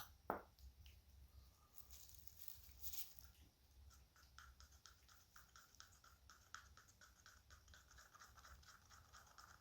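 Faint scraping of a stir stick against a cup as tinted casting resin is mixed, in short strokes a few times a second, after a single click about a third of a second in.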